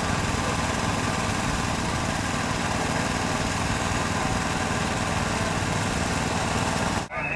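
A small engine running steadily at an even pitch, cutting off abruptly near the end.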